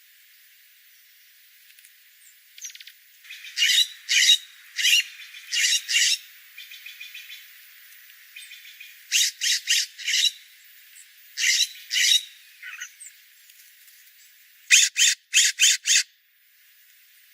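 Small birds calling in short, harsh chirps that come in clusters of two to four, ending in a quicker run of five calls near the end.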